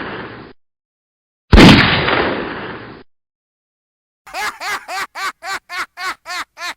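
Two heavy gunshot bangs, each trailing off in a long fading rumble: the first is already dying away at the start, the second hits about a second and a half in. After a stretch of dead silence, a rapid run of short pitched chirps begins, about three a second, opening a music track.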